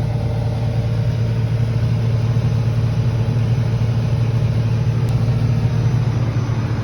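Combine harvester running steadily: a constant low engine drone with a faint steady hum above it.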